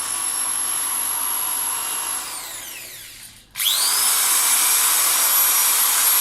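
Hitachi DV18V two-speed hammer drill running free with no load in its low first gear: a steady motor whine that winds down after the trigger is released about two seconds in, then spins straight back up when the trigger is squeezed again about three and a half seconds in, and runs steadily on.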